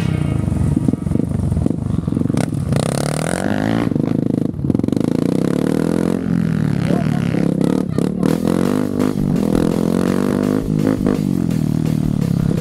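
Dirt bike engines revving, their pitch rising and falling over and over, with more than one bike at times, and a couple of sharp knocks.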